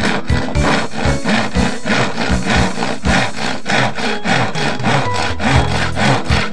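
Hand saw cutting across a wooden board in quick, even back-and-forth strokes. The saw's teeth were filed only in the gullets and not sharpened to points, and it cuts with a juddery, skating feel ("agak lari-lari").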